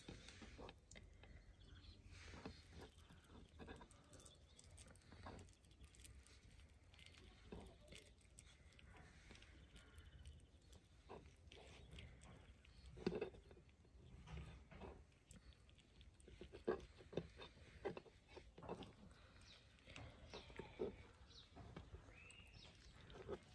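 Quiet, soft rustling and light squelching of a blanched cabbage leaf being rolled by hand around a rice filling on a wooden cutting board, with scattered small taps on the board.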